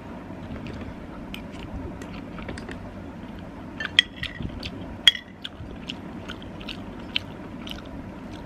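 A person chewing and eating pasta soup close to the microphone, with small wet mouth sounds throughout and two sharper clicks about four and five seconds in.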